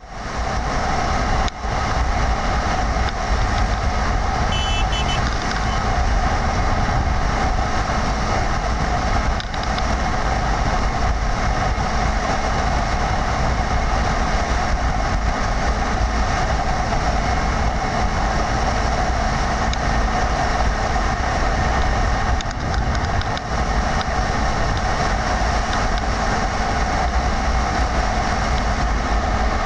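Steady rushing noise of wind and a vehicle moving at speed, with a deep low rumble, dipping briefly twice.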